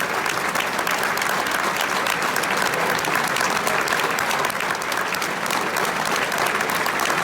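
Football stadium crowd clapping: dense, steady applause from many hands.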